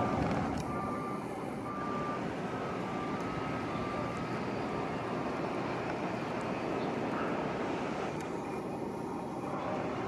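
Steady outdoor rumble of distant traffic and construction machinery, with a faint intermittent high beeping during the first few seconds.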